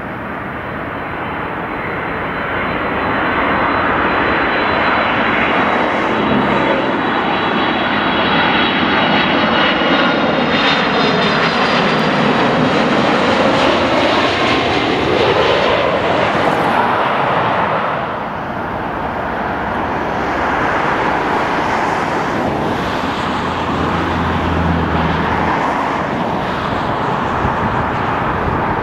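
Jet airliner engines on landing approach: a Boeing 767-300ER's whine and rumble grow louder as it passes low overhead about midway, with a sweeping, phasing whoosh. After a brief dip about two-thirds through, a steadier jet noise follows from the next approaching airliner.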